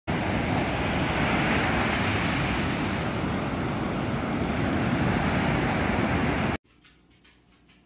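Ocean surf breaking and washing up a sandy beach: a steady rush of noise that cuts off suddenly about six and a half seconds in, leaving near silence.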